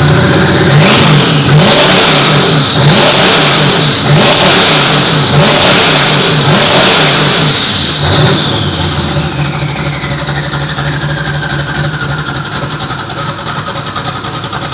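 Twin-turbo Chevy 350 V8 with open downpipes revved about five times in quick succession, the turbo whistle rising and falling with each rev. About eight seconds in it drops back to idle while the turbo whistle slowly falls in pitch as the turbos spool down.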